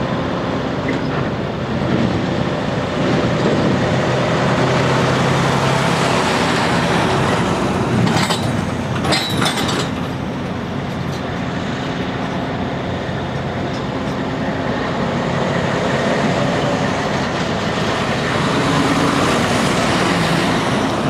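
Diesel semi trucks driving slowly past, their engines running steadily, with a tanker rig passing close near the end. A few brief hisses come about halfway through.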